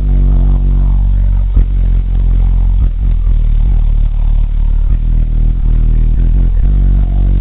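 Loud, deep bass played through six JL Audio 13W7 subwoofers in a Chevy Tahoe: sustained low notes, with a few sharp knocks breaking in, about a second and a half in and again near three seconds.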